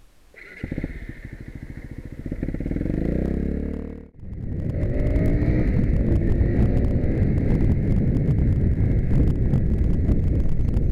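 Blata 125 motorcycle engine starting about half a second in and revving up, rising in pitch. About four seconds in the sound cuts off, then the engine runs steadily under way with wind noise.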